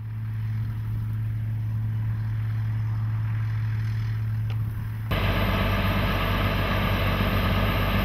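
Gleaner combine harvester running: a steady low engine hum, then about five seconds in a sudden change to a louder, fuller machine rumble with a high whine on top.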